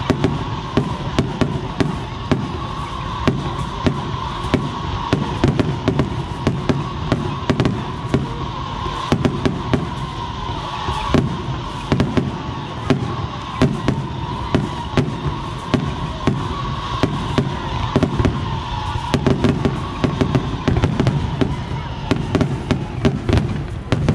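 Fireworks display going off in a rapid, continuous barrage: many sharp bangs and crackles a fraction of a second apart, with no pause.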